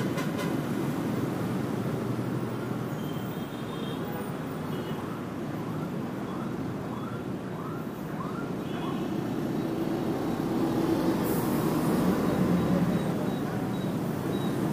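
Steady city street traffic noise. A quick run of short rising chirps sounds about halfway through, and the traffic grows louder about ten seconds in.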